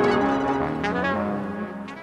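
The closing bars of a progressive house track: a melody of held notes with no beat, fading out steadily.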